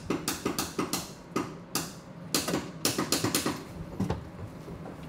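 Repeated sharp clicks from the snowcat's starting circuit as the key is turned, irregularly spaced, with no engine cranking: the sign of a bad starter solenoid.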